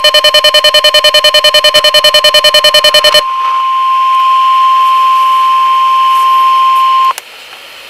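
A weather radio receiver's alert siren, a harsh rapid beeping, stops about three seconds in and leaves the NOAA Weather Radio 1050 Hz warning alarm tone, one steady pitch, which cuts off about seven seconds in. After it only faint radio hiss remains, ahead of a new watch broadcast.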